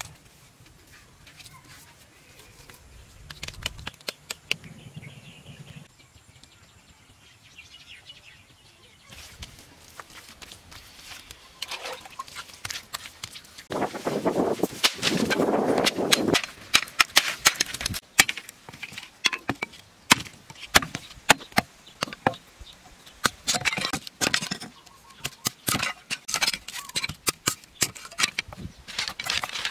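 Sharp cracks and knocks of green bamboo being split and trimmed with a machete, coming thick and fast through the second half. Earlier there are scattered handling knocks and a loud rough rustling noise lasting a couple of seconds.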